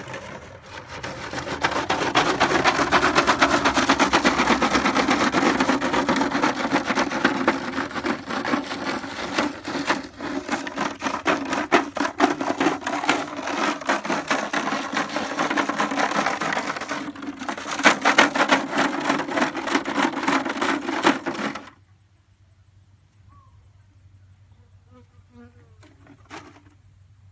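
Loud, rapid buzzing rattle that cuts off suddenly about twenty-one seconds in, leaving only a faint background.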